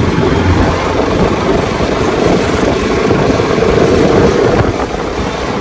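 Bajaj Pulsar RS200 motorcycle on the move, its single-cylinder engine running steadily under a rush of wind over the microphone.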